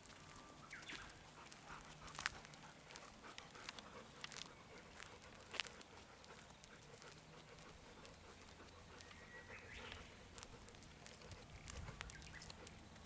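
Faint sounds of a golden retriever close by: scattered soft clicks and a few brief small noises over near quiet.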